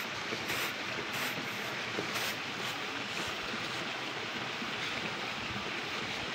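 Steady rustling hiss of grain being winnowed with a round bamboo tray, with rhythmic swishes about twice a second in the first couple of seconds.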